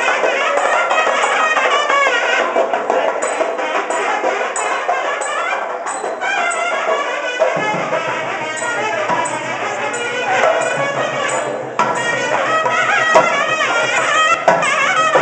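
Temple procession music: barrel drums beaten briskly under a shrill reed wind instrument playing a wavering, ornamented melody.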